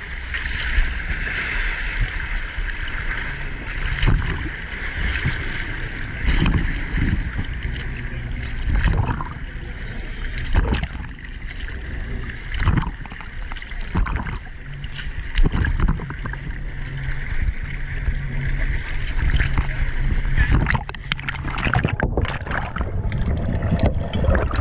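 Choppy sea waves slapping and splashing against a camera held at the water's surface, with the steady low hum of a dive boat's engine idling close by.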